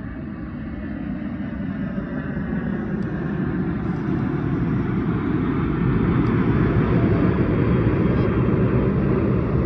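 Low-flying airplane approaching overhead: a steady engine rumble that grows louder over about six seconds and then holds.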